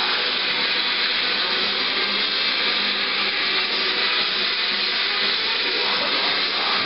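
Loud, dense, noisy music played through speakers as a stress stimulus for a lab rat, with no clear beat.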